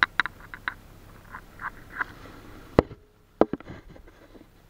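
Handling noise: a quick run of clicks, soft rustling of plastic sheeting, then two sharp knocks about three and three-and-a-half seconds in as the plastic brushes and bumps against the camera.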